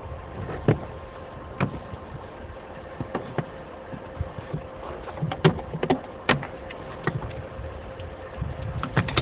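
Snow being knocked and brushed by hand off the windscreen and cab front of a 2TE116U diesel locomotive: irregular sharp knocks and thuds of hands and boots against the snowy metal body, the loudest about halfway through. A steady faint hum runs underneath.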